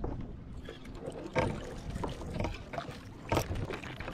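Water sloshing and splashing around a paddleboard, over a steady low rumble, with two louder splashy moments, one about a third of the way in and one near the end.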